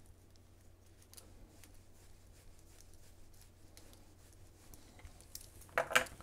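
Faint clicks and ticks of small 3D-printed plastic parts, screws and a hex key being handled, with a louder short clatter of a few quick knocks near the end as a part goes down on the desk.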